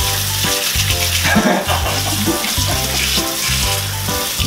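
Background music with a repeating bass line, over a steady hiss of running tap water as the slime is washed off a hokke. The water cuts off near the end.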